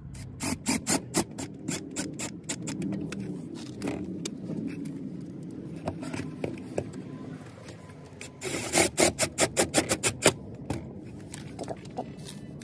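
Screws being driven with a red screwdriver through a metal license-plate bracket into a car's plastic underbody panel. A rough scraping grind runs throughout, broken by runs of sharp rapid clicks in the first couple of seconds and again, louder, about eight to ten seconds in.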